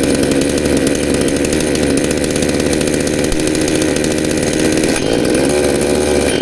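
Two-stroke chainsaw engine running steadily, then cut off and winding down right at the end.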